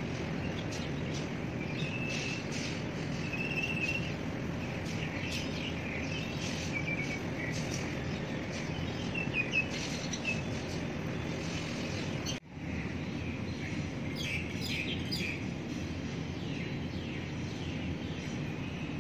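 Birds chirping, short high calls and little trills repeated on and off, over a steady low rumble of background noise; the sound cuts out for a moment about twelve seconds in.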